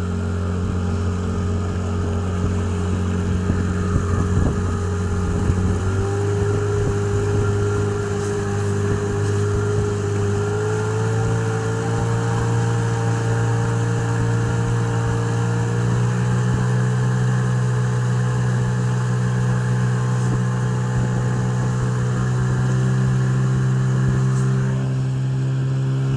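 Golfstream (Parsun) T8 8-hp two-stroke outboard motor running under way during its break-in. The engine speed rises in steps about 6, 11 and 16 seconds in, then holds steady.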